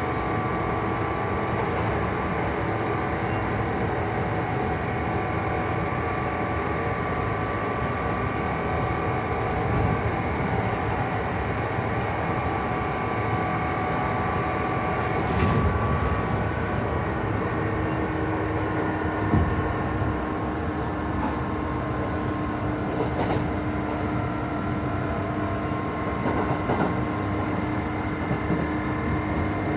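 Interior running sound of a Kintetsu 2800-series motor car at speed: the Mitsubishi MB-3110A DC traction motors whine at a steady pitch over wheel and rail noise, with a few short knocks. This car's gear couplings give it an unusual, odd-sounding run.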